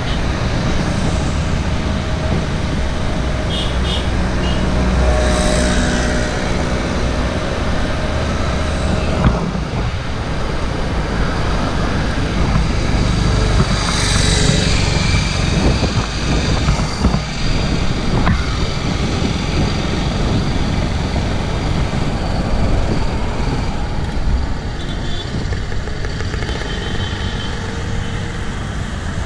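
Road traffic heard from a moving bicycle: a steady rumble of cars and other motor vehicles going by, with a few louder passes.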